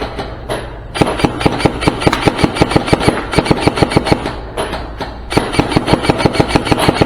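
Airsoft guns firing rapidly: a quick string of sharp cracks at about eight a second from about a second in, a short break near five seconds, then another string.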